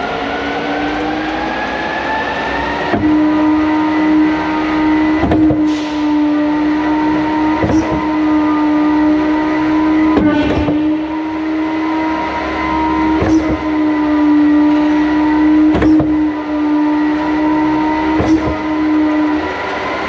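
Putzmeister concrete pump running empty for a test: the pump drive rises in pitch over the first few seconds and then holds a steady drone. A sharp clank about every two and a half seconds, six in all, is the S-tube shifting over on hard shift, noticeably snappier with the accumulator bottle freshly charged with nitrogen.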